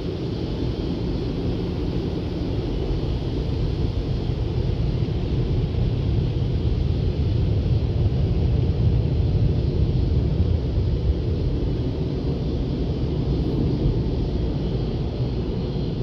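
Steady low rumble of a car's engine and tyres heard from inside the cabin as it rolls slowly forward, swelling a little midway and easing toward the end.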